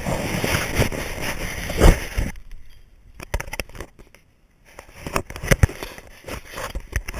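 A dense rush of noise that cuts off suddenly about two seconds in, followed by scattered knocks and clicks of a GoPro camera in its housing being handled.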